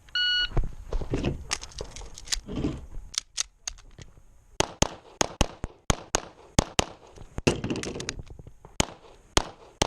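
Electronic shot timer's start beep, then a string of .40 S&W pistol shots from a 2011. The shots come mostly in quick pairs and runs a few tenths of a second apart, with short breaks between strings.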